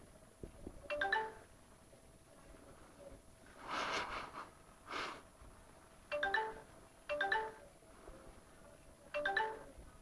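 Instant-messenger notification chime from a laptop's speaker: a short run of quick notes that sounds four times, about a second in, then around six, seven and nine seconds. In between, about four and five seconds in, come two short hissy bursts.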